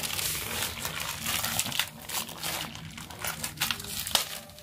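Crackly rustling and liquid noise as hot tea is poured from an aluminium pot, gripped in a cloth, through a plastic tea strainer into steel tumblers. The sound is densest for about the first two seconds, then turns into scattered small clicks and taps.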